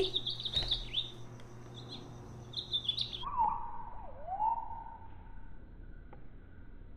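Recorded bird calls played through the small speaker of a push-button bird song book: high chirping, gliding notes over a low electronic hum, cutting off abruptly about three seconds in. Lower whistle-like notes that slide down and back up follow.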